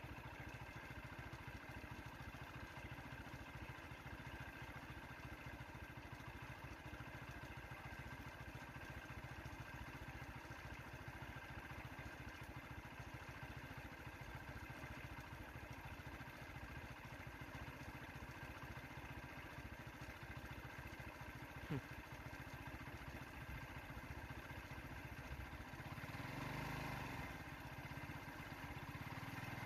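A vehicle engine idling steadily, with one sharp click about two-thirds of the way through. Near the end a motorcycle engine grows louder as it approaches.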